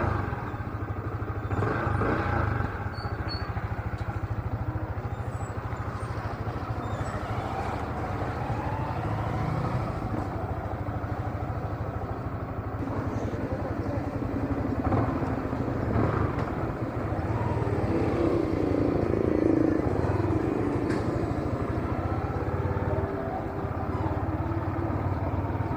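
A motorcycle engine running steadily, with general shop and street noise around it.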